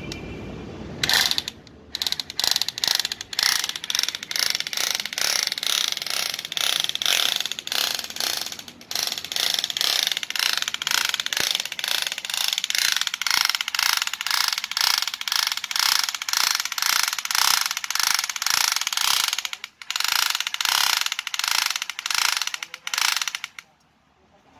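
Corded electric drill boring a hole down into a metal plate on the floor. It makes a grinding sound that pulses about three times a second, pauses briefly twice, and stops shortly before the end.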